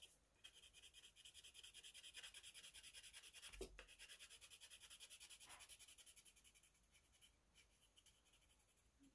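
Faint scratching of a tan colored pencil on paper in quick, even back-and-forth strokes as an area is shaded in, dying away about six and a half seconds in. One soft knock about halfway through.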